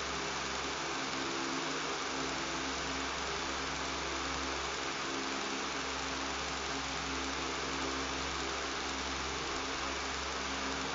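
Electric fan running steadily: a constant airy rush with a low buzzing motor hum beneath it, unchanging throughout.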